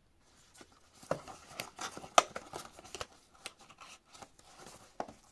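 Cardboard perfume box and its inner cardboard insert being handled with gloved hands: a run of scrapes, rustles and sharp taps, busiest from about one to three seconds in, the sharpest about two seconds in, with another tap near the end.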